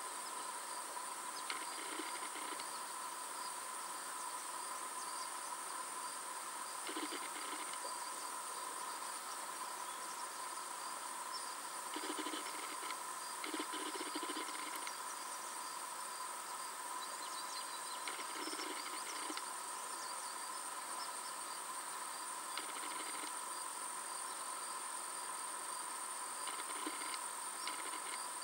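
A steady chorus of summer insects: an unbroken high-pitched drone, with short faint sounds every few seconds.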